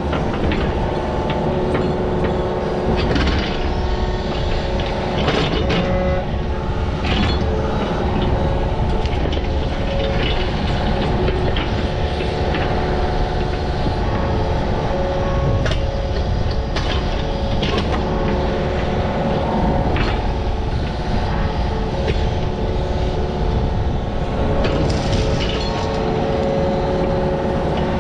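Excavator's diesel engine running steadily with a hydraulic drone, with irregular sharp metal clanks and scrapes from the bucket digging.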